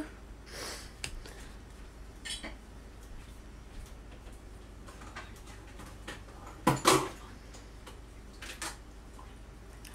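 Steady low room hum with a few soft scattered clicks and knocks of handling. A short, louder clatter comes about seven seconds in.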